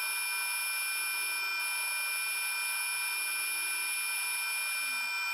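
Metal lathe running and parting off a workpiece with a repaired parting blade, played back at eight times speed. It sounds as a steady high-pitched whine made of several fixed tones. The cut going through shows that the repaired blade holds its insert and works.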